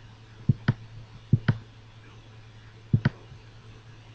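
Computer mouse button clicked three times, each a quick press-and-release pair, over a low steady hum; the clicks place the points of a lasso selection in Photoshop.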